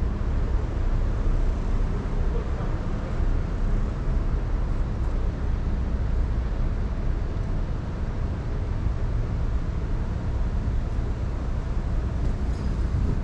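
Steady low rumble of outdoor city ambience on foot, with no distinct events standing out.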